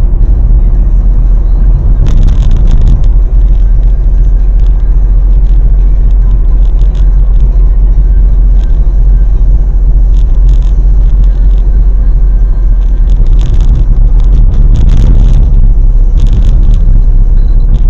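Car driving at road speed, heard from inside the cabin: a loud, steady low rumble of road and engine noise, with scattered small ticks and rattles, especially near the middle and toward the end.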